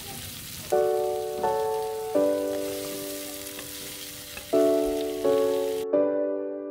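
Pork and celery sizzling in a hot pot as they are stirred. A soft piano melody of struck, fading notes comes in under it about a second in and is the loudest sound. Near the end the sizzle cuts off abruptly, leaving the piano alone.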